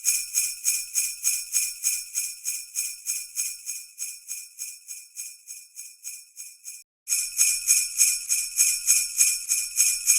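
Sleigh bells shaken in a steady rhythm, about three jingles a second. The run breaks off about seven seconds in and, after a short gap, starts again louder.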